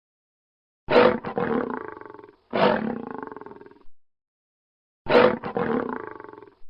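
Lion roar sound effect: three separate roars, each starting loud and tailing off over about a second and a half, with dead silence between them.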